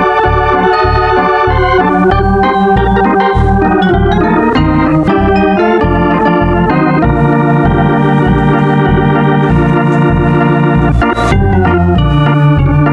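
Organ music playing a brisk tune, held chords over a steady pulsing bass beat.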